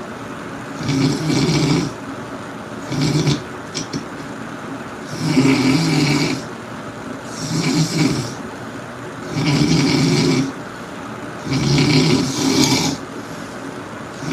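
Loud snoring: about six snores, one every two seconds or so, with a shorter one about three seconds in.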